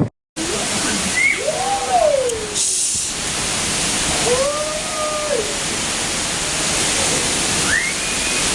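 Steady rushing noise of hurricane wind and rain. Over it, three brief rising-and-falling, voice-like calls or whistles come a few seconds apart.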